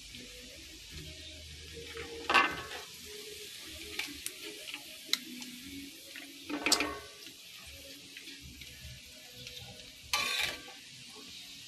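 Marinated pork pieces sizzling in hot oil in a pan, a steady hiss, with a metal ladle stirring and scraping against the pan three times: a little over two seconds in, near the middle, and near the end.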